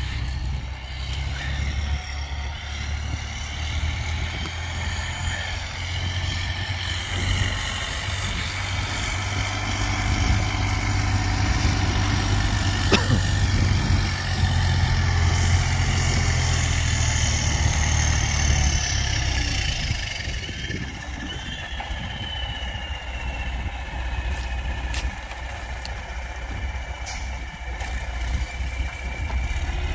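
Heavy delivery truck's diesel engine running steadily, louder for a stretch in the middle, with a high tone that slowly falls in pitch over the last ten seconds and a few sharp clicks.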